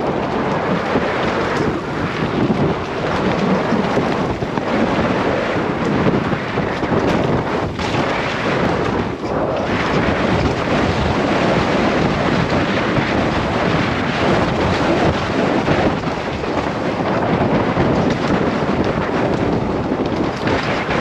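Wind buffeting the microphone of a helmet-mounted camera during a fast mountain-bike descent, mixed with the tyres rolling over dirt and leaves and the bike rattling over the rough trail. The noise is loud and continuous.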